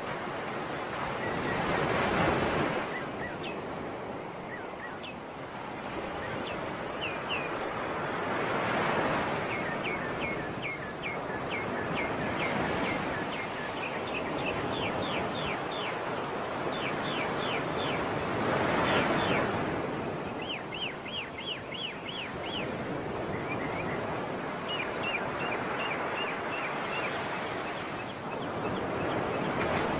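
Sea waves washing in and breaking, swelling about every seven to ten seconds over a steady surf hiss. Runs of short, high chirps sound over the surf.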